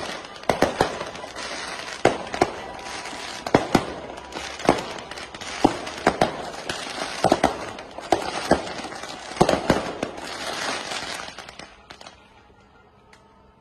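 Fireworks and firecrackers going off in a rapid string: sharp bangs one or two a second over steady crackling, dying away near the end.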